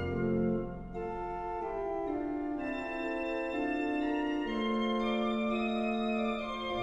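Organ playing slow, held chords that change every second or so, with a short dip in volume about a second in.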